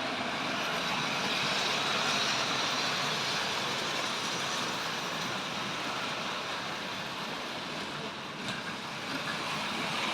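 Model train running on the layout's track: a steady whirr of its electric motor and wheels on the rails, with a single small click about eight seconds in.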